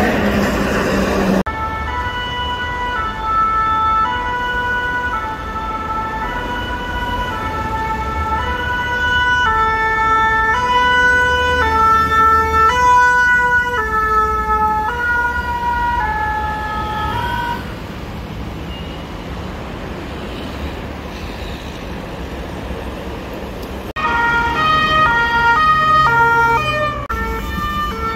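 French two-tone emergency siren of a fire service rescue ambulance going by, its two alternating notes dropping in pitch as it passes and then fading out under traffic noise. Near the end a second two-tone siren starts suddenly, alternating faster. About a second in, a loud rush of passing traffic cuts off.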